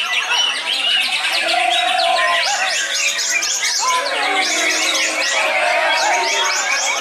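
Many caged songbirds singing at once, a dense, continuous mass of overlapping rapid chirps, trills and whistles.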